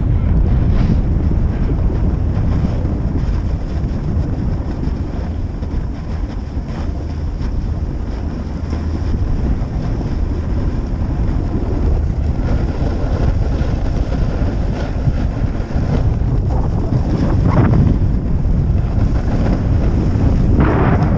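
Wind buffeting the microphone as a steady low rush during a fast downhill slide on snow. Near the end comes a stronger hiss of edges scraping the snow.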